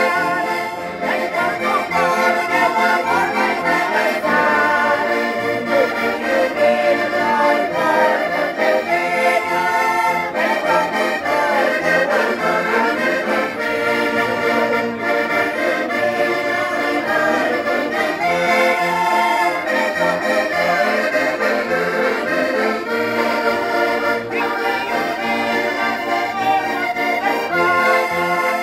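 Accordion playing a traditional folk tune, held at a steady level.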